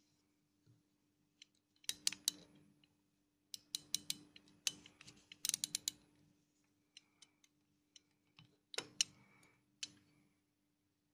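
Crown of a DOXA AntiMagnetique pocket watch being wound, its winding ratchet clicking in short runs of quick clicks. A few sharper clicks near the end come from the metal case being handled.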